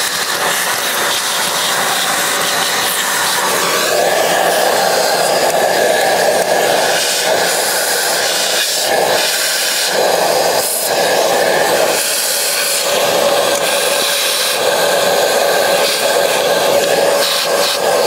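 Shop vac running with a steady whine and rushing air as its hose nozzle sucks residual coffee beans and grounds out of a coffee grinder's burr chamber and doser. The sound grows fuller about four seconds in and shifts briefly several times as the nozzle is moved about.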